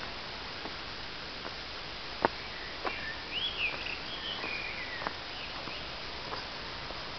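Footsteps on a leaf-strewn dirt forest path, heard as a few sharp clicks over a steady hiss, the loudest about two seconds in. In the middle a bird gives a brief run of high, curved chirping notes.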